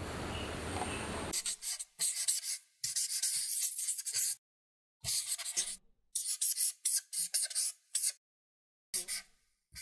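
Marker scratching across paper in a series of short strokes with brief silent gaps between them, after a second or so of steady hiss.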